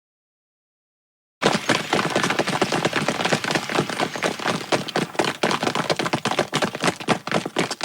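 Dragon Ball Z anime running sound effect: fast, dense footfalls, many to the second, starting about a second and a half in after silence.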